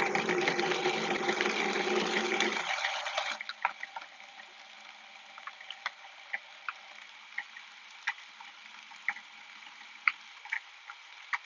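Food processor running, its blade blitzing butter and sugar together, for about three and a half seconds before it cuts off. Afterwards only faint scattered clicks remain.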